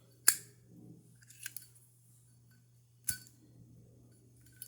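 Zippo lighter lid, hinged on a twist tie in place of its missing pin, being snapped open and shut: three sharp metallic clicks, the first the loudest.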